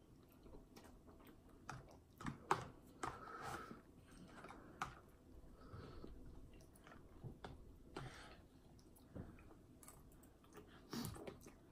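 Faint chewing of a mouthful of instant ramen noodles, with scattered light clicks of a metal fork against a plastic container.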